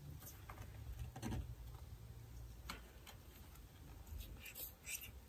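Faint, scattered light clicks and paper rustles from a new paper engine-cover gasket being handled and eased off its backing sheet, a few separate touches over the seconds.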